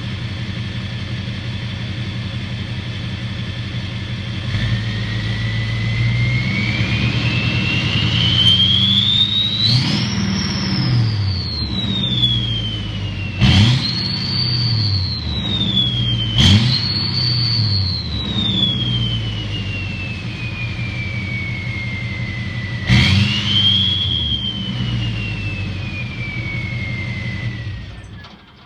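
LBZ Duramax 6.6-litre V8 turbodiesel with a GT3794 turbocharger and turbo-back exhaust, idling and then revved. The turbo whistle climbs slowly to a high pitch about ten seconds in, then falls away. Three sharper throttle blips make the whistle jump up and wind down again each time.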